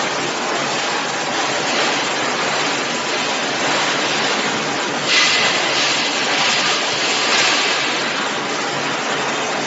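Industrial machinery running with a steady noise. Short bursts of hissing come about five seconds in and again a couple of seconds later.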